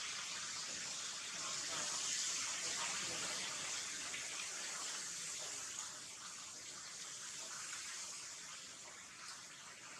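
Steady high-pitched hiss of outdoor background noise, easing slightly in level after about six seconds.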